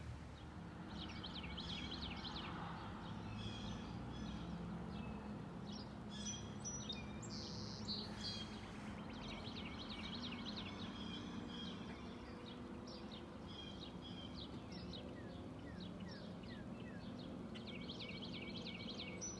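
Small songbirds chirping and singing outdoors, with quick runs of short chirps repeating throughout, over a faint steady low rumble.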